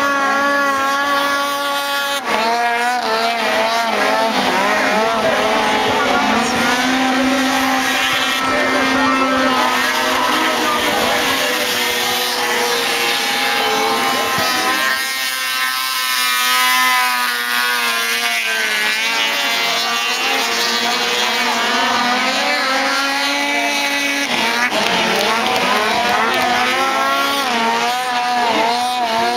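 Watercross snowmobile engines racing across open water, their high engine notes rising and falling as the riders work the throttle.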